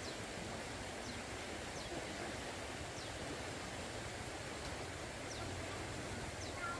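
Steady, even rushing noise outdoors, with faint short high chirps now and then.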